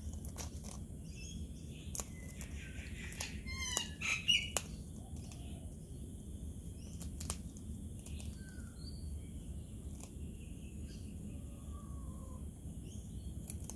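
Sulphur-crested cockatoo biting into a biscuit, its beak making scattered sharp crunching clicks. A short, louder bird call stands out about four seconds in, and faint distant bird chirps come later.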